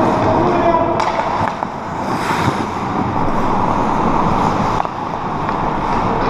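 Ice hockey play on an indoor rink: a steady wash of skates scraping and carving the ice, with a few sharp clacks of sticks and puck.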